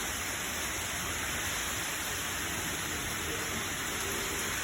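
Steady hiss of rain and wind as a hurricane moves in.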